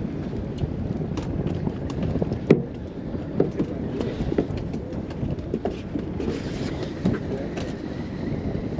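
Steady low rumble of a fishing boat under way, with wind on the microphone and scattered knocks and clicks on deck. The sharpest knock comes about two and a half seconds in.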